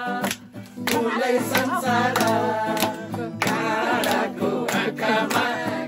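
A man singing to a strummed acoustic guitar.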